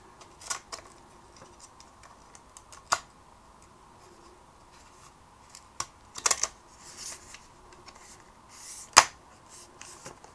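Small sharp clicks and snaps of a Sony Walkman WM-EX610 cassette player's casing being handled and pressed back together, several scattered clicks with a quick cluster about six seconds in and the loudest click about nine seconds in.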